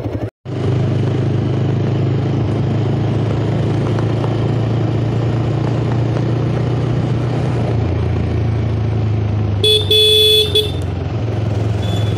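Motorcycle engine running steadily while riding. Near the end a horn sounds twice, a short blip and then a longer toot.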